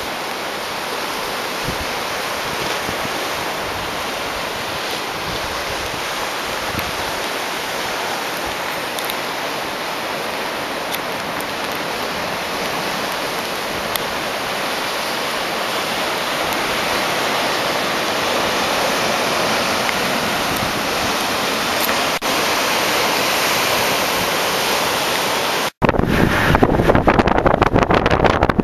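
Ocean surf washing over rocks, a steady rush of water with wind on the microphone. About 26 seconds in it cuts abruptly to louder, fluttering wind and road noise from a moving car.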